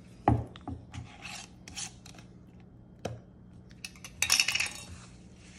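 Glass mason jar with a metal screw lid being handled on a wooden workbench: a knock as the jar is set down, then scraping clicks as the lid is unscrewed, and a louder rattling scrape about four seconds in.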